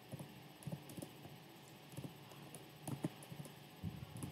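Faint computer keyboard typing: about six separate key taps, irregularly spaced, over a low steady hum.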